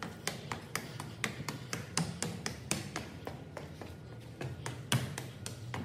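Footsteps climbing a flight of hard stairs: quick, even taps, about four a second.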